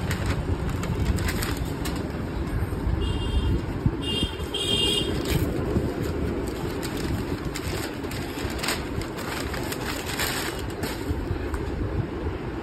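Paper rustling and crackling as a folded instruction leaflet is opened and handled, over a steady low background rumble. A few short high chirps come about three to five seconds in.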